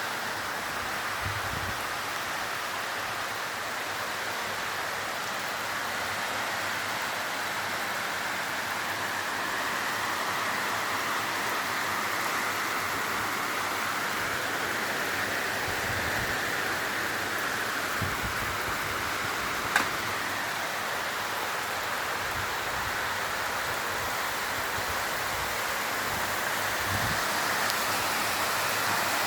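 Steady rain falling, an even hiss, with one sharp tap about two-thirds of the way through.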